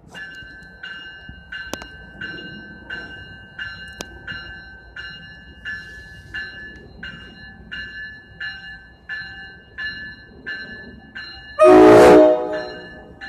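A bell ringing steadily at about one and a half strokes a second. Near the end comes one loud, short blast of an NJ Transit commuter train's horn.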